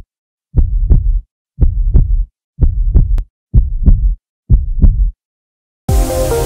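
Heartbeat sound effect: deep double thumps, lub-dub, about once a second, five times. Electronic music comes in near the end.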